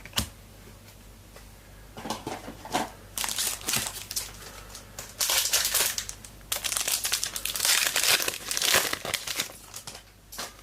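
A Footy Stars trading-card packet being torn open, its wrapper crinkling and crackling in irregular bursts.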